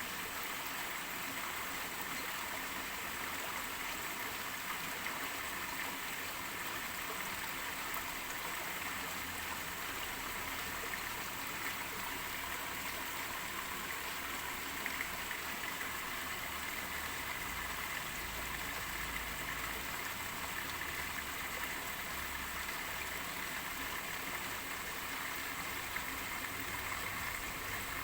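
Steady rain falling with running water, an even hiss that holds without breaks.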